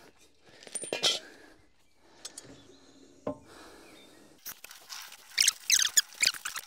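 Metallic clinks and knocks while a heavy EV traction battery is shifted on its lift. From about four and a half seconds a quick, irregular run of squeaky clicks and clinks sets in.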